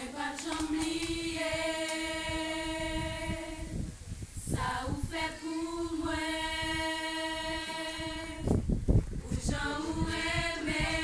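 Group of women singing a cappella, long held notes in phrases with a short break between them. About two-thirds through there is a brief low thump.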